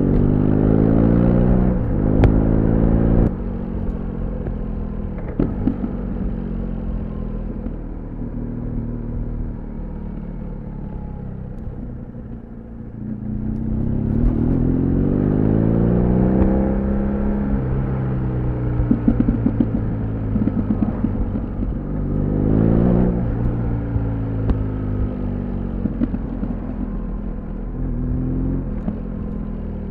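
BMW R1200GS boxer-twin engine pulling hard, easing off and accelerating again, its pitch rising and falling with the throttle. On the overrun the exhaust pops and crackles in quick rattling clusters, with the densest crackling about two-thirds of the way through.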